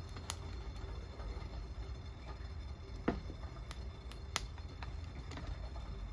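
Burning wood crackling in a campfire, with irregular sharp pops, one louder about three seconds in, over a low steady rumble.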